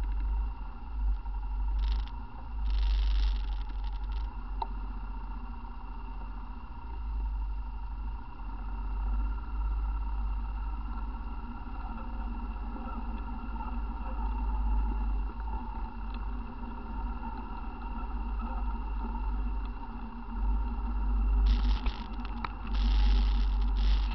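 ATV engine running steadily along a trail, a constant low rumble. About two seconds in, and again near the end, a few seconds of louder rushing noise rise over it.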